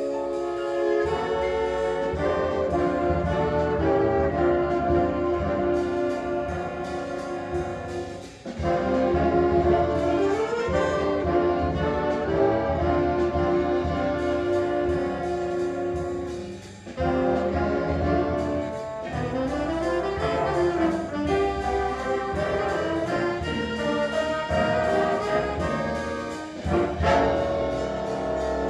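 A student jazz big band playing live: saxophone, trombone and trumpet sections over piano, guitar, upright bass and drums. The band drops out briefly twice, about eight seconds in and again near seventeen seconds, then comes back in full.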